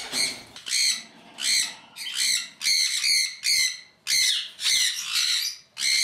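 Sun conure screeching: a rapid run of about ten harsh, shrill squawks, roughly one every half second.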